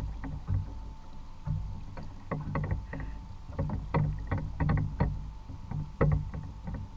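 Small waves lapping and knocking against a kayak hull on calm sea: irregular short clicks and knocks, several a second in clusters, over a low watery rumble, with a faint steady tone underneath.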